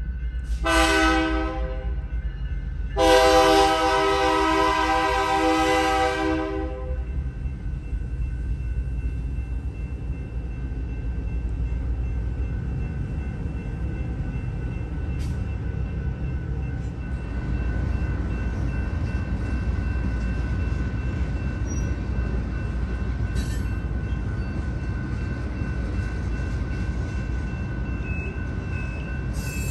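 Nathan K3LA three-chime horn on a BNSF B40-8W diesel locomotive sounding a short blast, then a long blast of about four seconds, at a grade crossing. It is followed by the steady rumble of the locomotive and its freight cars rolling past.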